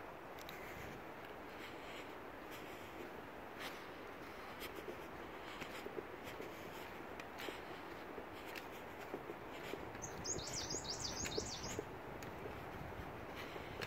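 Footsteps scuffing and crunching on a dry, leaf-strewn dirt and stone trail, over a steady background hiss. About ten seconds in, a small bird sings a quick, high warbling phrase lasting about a second and a half.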